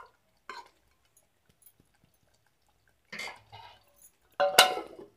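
Metal spoon stirring and scraping through thick masala gravy in a metal pot, with a few soft scrapes, then a sharp, ringing metal clank near the end.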